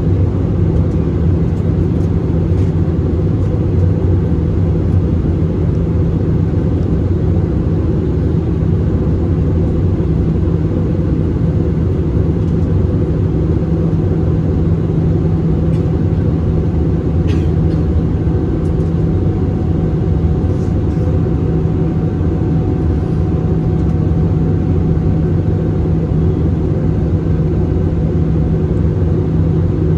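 Steady cabin noise of an Airbus A320-216 in descent, heard from a window seat over the wing: a low drone of its CFM56 engines and the airflow, with a faint steady hum on top.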